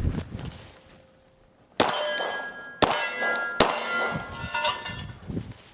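Three Glock 45 9mm pistol shots, a second or less apart, each met by the ringing clang of a struck steel target; the ringing fades out near the end.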